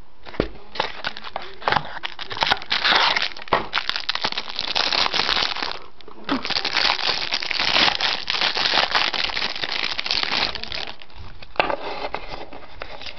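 Plastic wrapper of a pack of baseball cards crinkling as it is handled and pulled open by hand. Crackling comes in two long spells, with a brief pause in between, and softer rustling near the end.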